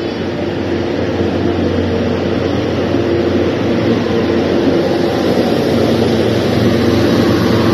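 Diesel-hydraulic locomotive DHL 9003 running as it hauls its train into the platform. The steady engine note slowly grows louder as the locomotive comes up and passes close by.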